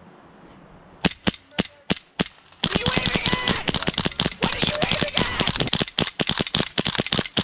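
Airsoft replica guns firing: a few single shots about a second in, then rapid, sustained automatic fire.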